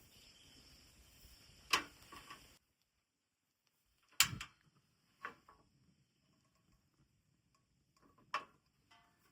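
Four short sharp clicks or knocks a second or more apart, the second of them the loudest, over a faint hiss that cuts off suddenly after about two and a half seconds.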